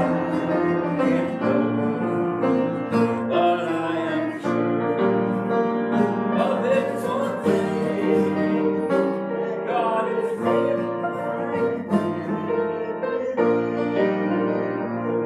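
Instrumental church music: sustained keyboard chords, the harmony changing every second or so.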